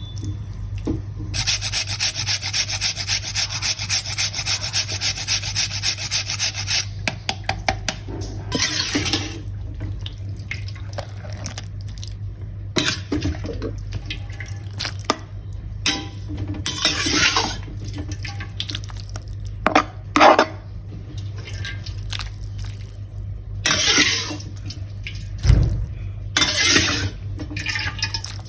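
Water running from a tap, steadily for several seconds and then in shorter on-and-off spells, with rubbing and splashing of something being washed under it. A steady low hum sits beneath.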